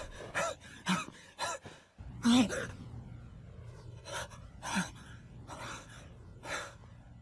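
A young man gasping for breath: a series of about eight short, sharp breaths, two of them with a brief voiced catch, as he comes to.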